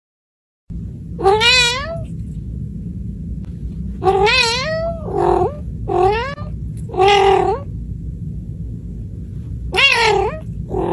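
A domestic cat meowing about six times in long, drawn-out calls whose pitch rises and falls, over a steady low rumble.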